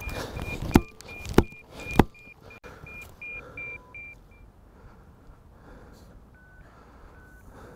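Burrow-dog locator receiver beeping rapidly, about four short beeps a second, fading out about four seconds in, with a few slower, lower beeps near the end. Three heavy thuds in the first two seconds are the loudest sounds.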